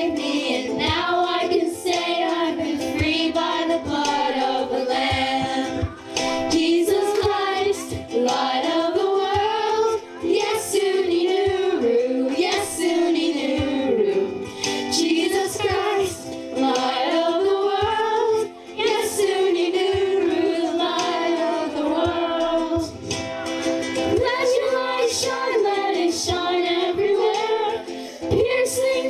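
Stage musical cast singing together over musical accompaniment, a song of the closing number.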